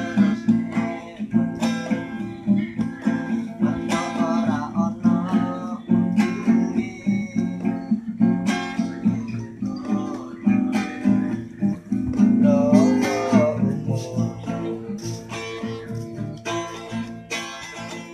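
Acoustic guitar strummed, with repeated chord strokes.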